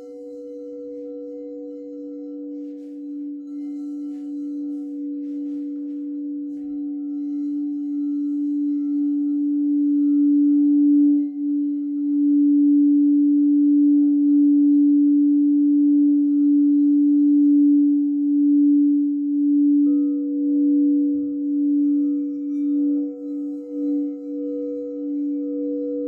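Singing bowl sounding with a steady low hum and a few higher overtones, swelling louder over the first ten seconds or so and then wavering in loudness; a higher tone comes in more strongly about twenty seconds in.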